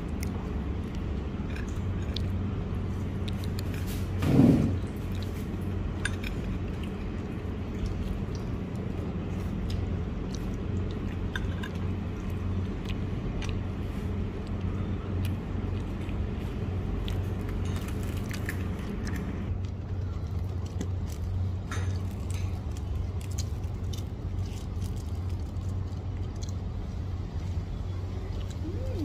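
Steady low hum of room tone with scattered light clinks of cutlery and crockery at a dining table, and one dull thump about four seconds in.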